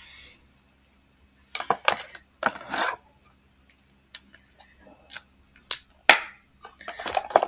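Handling noise of gift packaging and objects being moved and set aside: a couple of short rustles, then a few sharp clicks and knocks about two-thirds of the way through.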